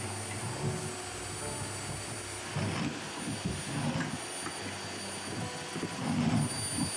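Canister vacuum cleaner being handled: a few plastic knocks and rattles as its ribbed hose is worked at the connector on the machine's body, over a steady whooshing hum with faint background music.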